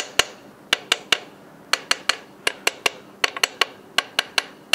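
Inspection hammer tapping the wheel nuts of a truck trailer wheel: a quick series of sharp, ringing metallic taps in short runs of two to four, nut after nut. The nuts are all torqued to spec, and the tight nuts give a good, clear ring.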